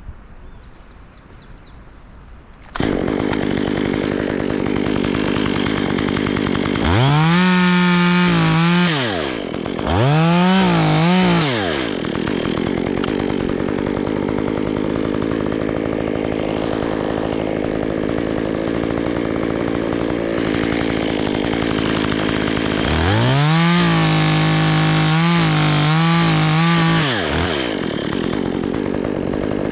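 Chainsaw engine coming in suddenly about three seconds in and idling. It is revved to full throttle twice briefly, then held high for about four seconds near the end, with small dips, before dropping back to idle.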